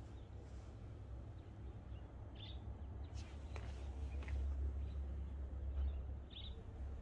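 A bird chirps briefly twice, about two and a half seconds in and again near the end, over a low steady rumble.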